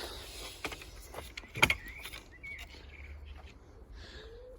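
A pigeon starts cooing near the end, low soft hoots that carry on afterwards. Before that comes a single sharp knock about a second and a half in, with a few lighter clicks.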